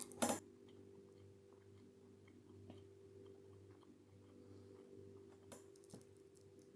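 A person quietly chewing a mouthful of meat-free Cumberland-style sausage, with faint small clicks, over a steady low hum. A brief clatter right at the start is the loudest sound.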